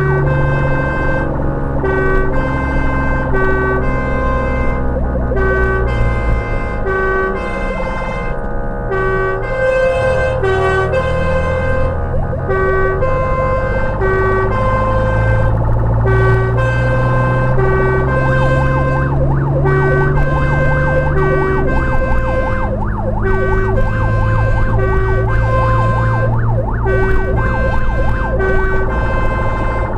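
Fire engine's two-tone siren alternating between a high and a low note, about one cycle a second, heard from inside the cab while the truck is on an emergency run. Under it, the truck's engine runs, its note rising and falling a few times.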